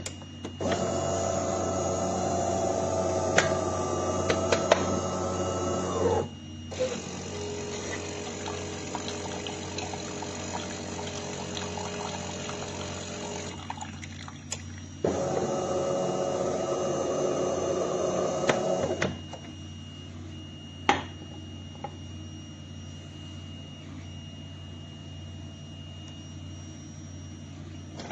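De'Longhi Magnifica S automatic espresso machine running its pump to dispense, in two loud spells of about five and four seconds, with a quieter steady hum between them. A single sharp click comes a couple of seconds after the second spell.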